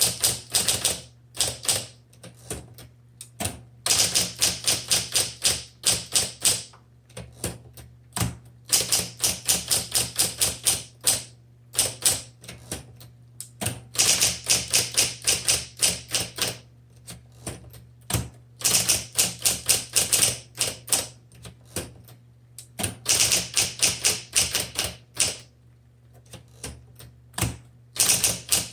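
1961 Smith Corona Electric 5 electric typewriter being typed on fast: quick runs of key strikes broken by short pauses, over the steady hum of its running motor, with an odd louder single stroke now and then.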